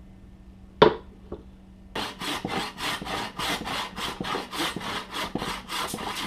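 A single sharp knock, then fast, even back-and-forth strokes of a hand tool cutting into a wooden axe handle, roughly five strokes a second.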